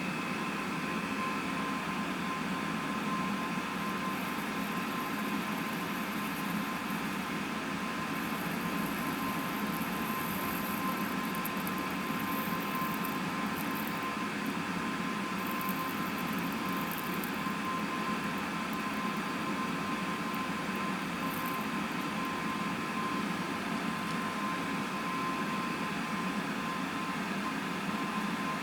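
Steady machine hum and hiss with a thin constant whine. Faint high hissing comes and goes around the middle.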